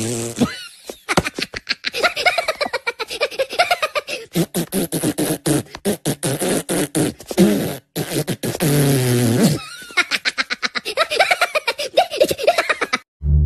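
A man beatboxing with his mouth: fast runs of clicks and pops mixed with pitch-bending voiced sounds, broken by two short pauses.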